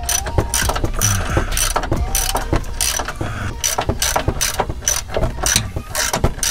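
Hand ratchet wrench clicking in quick repeated strokes, with a short pause about halfway, as bolts are backed out. The bolts turn easily, having been soaked in penetrating oil.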